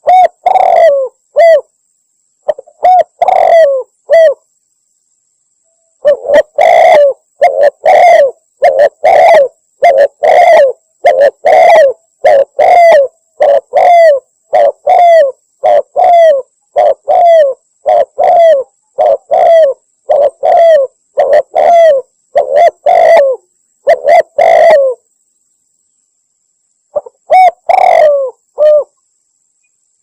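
Spotted dove (tekukur) cooing, a bird-lure call: loud, repeated short coos in phrases, with a long unbroken run in the middle and brief silent gaps between runs. A faint, steady high-pitched whine runs underneath.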